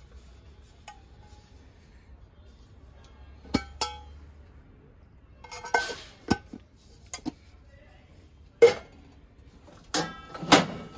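A small lidded brass-and-copper box being handled: its metal lid scrapes and clinks against the body in a few separate sharp clinks with a brief ring. Near the end comes a louder clatter of metal on metal as it is set down among other brass vessels.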